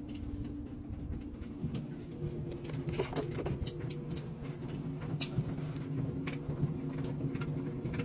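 Front-loading washing machine running, a steady low hum with scattered light clicks and taps.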